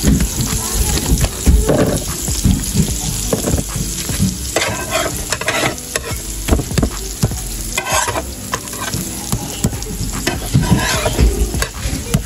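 Pancakes frying and sizzling in butter on a flat griddle, with scattered light knocks throughout.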